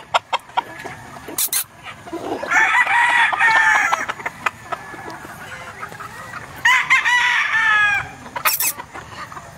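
Gamefowl roosters crowing: two long crows, the first about two seconds in and the second near seven seconds, with short clucks between them.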